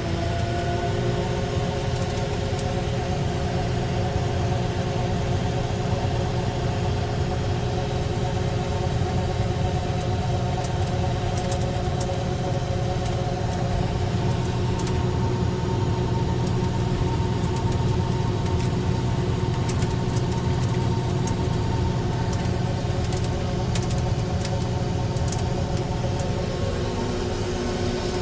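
Grain combine running steadily during corn harvest: a constant engine and drive hum with several held tones that stay at one pitch throughout.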